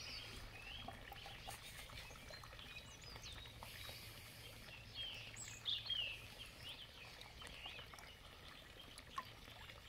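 Faint birdsong: many short chirps and twittering calls, busiest around four to six seconds in, over a steady low outdoor rumble.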